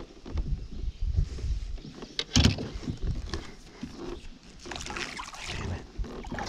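Water slapping and knocking against a small boat in uneven bursts, with a louder splash-like burst about two and a half seconds in.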